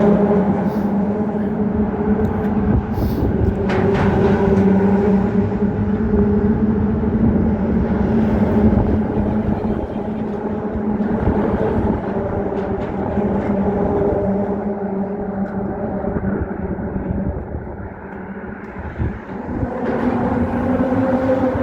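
Car tyres humming on the steel grid deck of the Roebling suspension bridge, a steady droning hum that eases off about 18 seconds in and swells again soon after.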